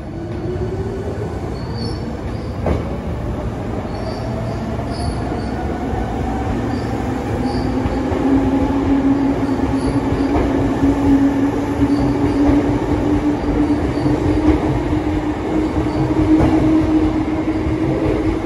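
Hankyu electric commuter train pulling away and running past close by: the traction-motor whine rises in pitch as it gathers speed over the first several seconds, then holds as a steady hum over the rumble of wheels on the rails, growing louder as the cars go by.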